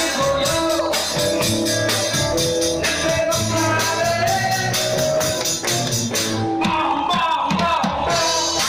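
Live rock and roll band playing: drums keep a steady beat under held melody notes. Wavering, voice-like notes come in near the end.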